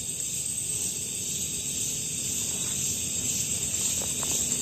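Steady high-pitched chirring of night insects such as crickets, with a faint low rumble underneath.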